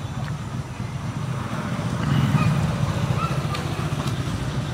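Street traffic: a motor vehicle's engine running close by, with a low pulsing note that grows louder about two seconds in.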